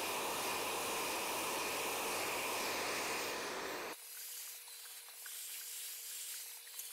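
Hand-held hair dryer blowing hot air while drying hair, a steady rush of air noise. It stops abruptly about four seconds in, leaving a faint hiss.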